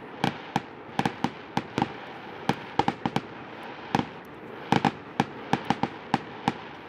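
Fireworks display going off: an irregular string of sharp bangs, about three or four a second.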